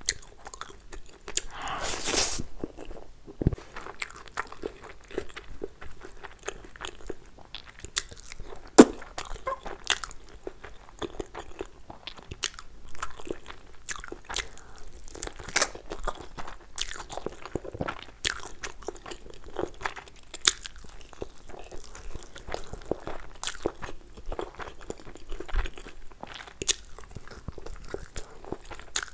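Close-miked eating sounds: chewing and biting into masala chicken and fried rice eaten by hand, with many small irregular clicks and crunches. There is a louder noisy stretch about two seconds in.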